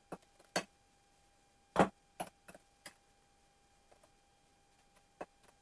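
Stirring dry sugar and powdered pectin in a bowl to break up clumps: scattered light ticks and clicks of the utensil against the bowl, the loudest about two seconds in.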